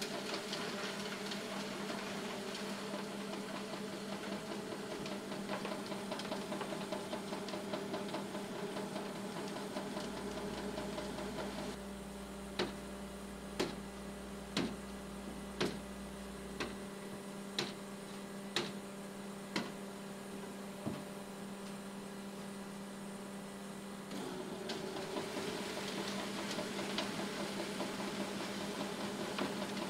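Concrete mixer truck running at its discharge chute, a steady engine hum with a constant low tone. In the middle comes a series of about nine sharp knocks, roughly one a second.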